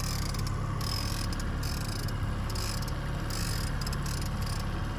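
Outboard motor running steadily at trolling speed, a constant low hum, with a rapid high ticking that comes and goes over it.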